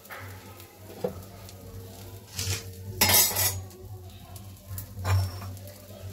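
Metal kitchen utensils clattering and scraping against pans and dishes in a few short bursts, the loudest about three seconds in, over the faint sizzle of an egg frying on an old tawa.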